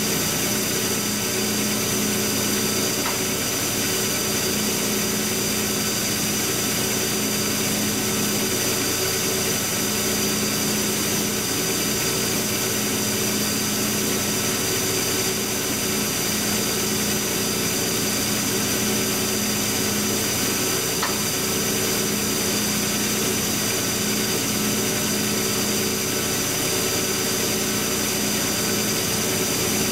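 Steady electric machinery hum of running machine-shop equipment, with a few steady tones and an even level, and a faint click about 3 seconds in and another about 21 seconds in.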